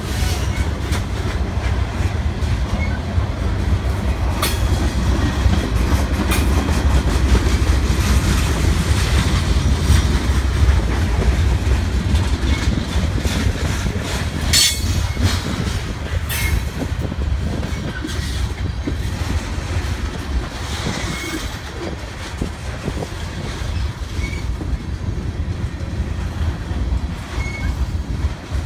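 Freight cars (covered hoppers, a boxcar and tank cars) rolling past at close range: a steady rumble of wheels on rail with clickety-clack, a few sharp clanks and brief high wheel squeals.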